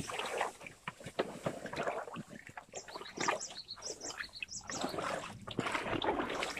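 Creek water sloshing and splashing in irregular bursts as someone wades through the shallow stream.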